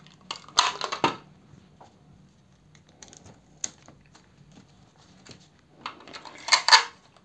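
Adhesive tape pulled off a roll and torn to fix paper pattern pieces in place, with paper rustling and light taps. There are short rasping bursts about half a second to a second in and a louder one near the end.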